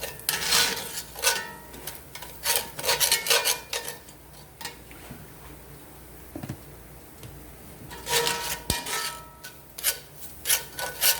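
A spoon scraping and stirring around a cast iron pan, working flour into sautéed vegetables to cook out its raw taste. The strokes come in quick bursts of scraping, with a quieter pause in the middle.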